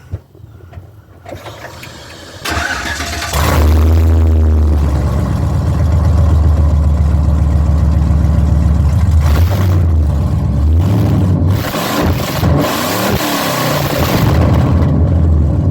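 A 2007 GMC Sierra Classic pickup is cranked by its starter and catches about two and a half seconds in, then runs loud and steady through long-tube headers and a 2.5-inch true dual X-pipe exhaust fitted with a three-chamber muffler. It is blipped up and down a few times in the latter half.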